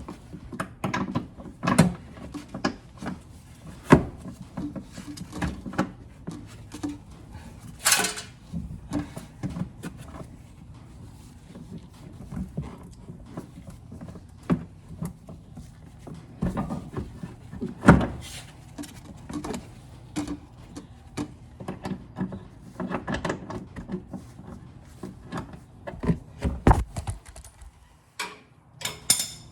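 Irregular metallic clinks and knocks of hand tools and bolts during work on a car's rear shock absorber mount, with a few louder knocks scattered through.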